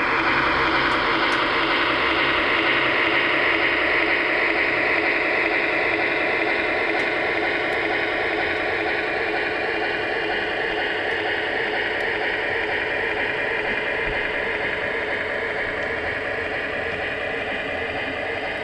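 Sound system of an HO-scale MTH Little Joe E20 model electric locomotive running, playing a traction-motor whine over the rolling noise of the model train on its track. A high whine slowly falls in pitch as the whole sound gradually fades.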